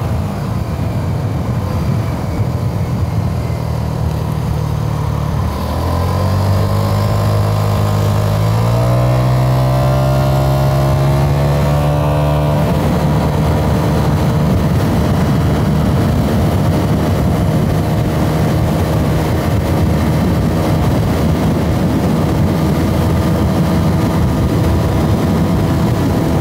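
Italjet Dragster 125 cc scooter engine at full throttle on a top-speed run. Its pitch rises from about six seconds in until about twelve seconds, then holds steady at high revs while the speed keeps climbing toward 100 km/h. There is a steady rush of wind and road noise under it.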